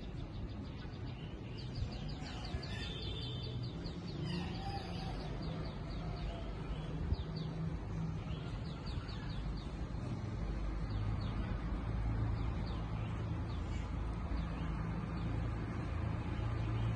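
Rainy-day outdoor ambience: a steady hiss of rain under a low rumble that grows louder about ten seconds in. During the first half a bird calls in quick, repeated high chirps.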